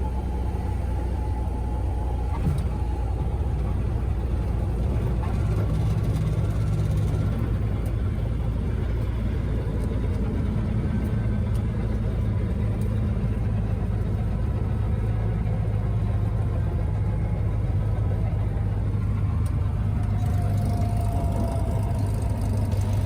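Light aircraft's piston engine running steadily, a continuous low drone that shifts slightly in pitch about five and ten seconds in.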